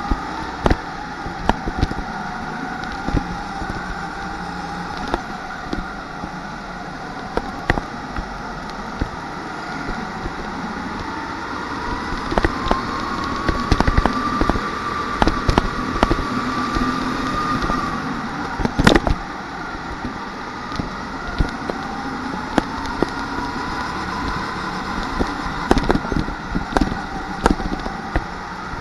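Rental kart running at racing speed, heard on board: a steady pitched drone that rises and falls with speed, higher around the middle and dipping again later, over a rough running noise with frequent sharp knocks and rattles.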